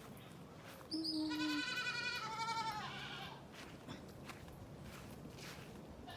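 A goat bleating: one long, quavering bleat that starts about a second in and lasts about two seconds.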